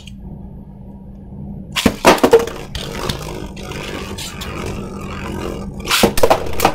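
Beyblade Burst spinning tops launched into a plastic stadium with a loud clatter about two seconds in, then a steady whirring rattle as they spin on the stadium floor, with loud knocks near the end as they clash.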